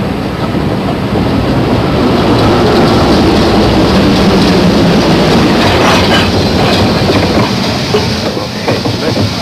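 A train running on the rails as it comes in, with a steady rumble and wheels clicking over the rail joints. The lowest rumble drops away about seven and a half seconds in as it slows.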